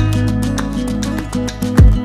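Background music with a steady beat, guitar and a thumping bass drum.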